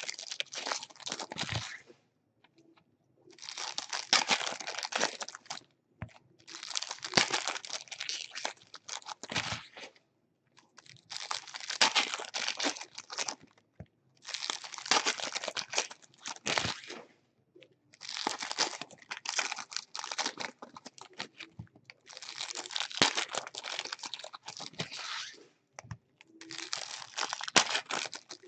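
Baseball card pack wrappers being torn open and crinkled, in about eight bursts of rustling a couple of seconds each, with short pauses between them.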